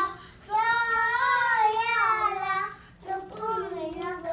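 A young child singing: one long held note that wavers in pitch, then after a short break a shorter sung phrase.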